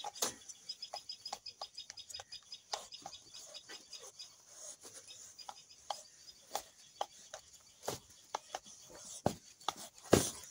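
Muscovy drake and rooster scuffling on concrete: irregular scraping, rustling feathers and wing slaps, with the loudest flurry of slaps near the end.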